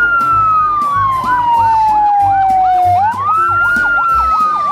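Electronic fire-engine siren: a wail that slowly falls, rises sharply about three seconds in and falls again, with a fast yelp warbling over it several times a second. A music beat thumps underneath.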